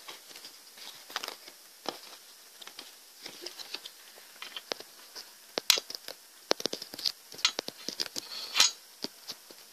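Scattered light clicks and taps of folded origami paper being handled and set down on a wooden table, with sharper, louder clicks in the second half.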